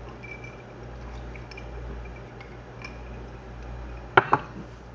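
Faint gulping and mouth sounds while soft drink is drunk from a glass, over a steady low hum. About four seconds in come two sharp knocks in quick succession.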